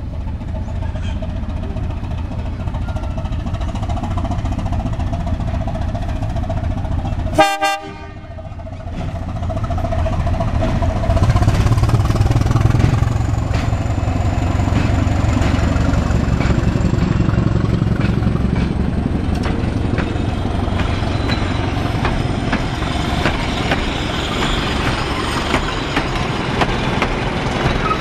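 Diesel shunting locomotive 507 approaching and passing while hauling a passenger train. There is a brief sharp toot about a quarter of the way in. The engine's low rumble grows louder from about a third of the way in, then the carriages roll past with rapid clicking of wheels on the rails.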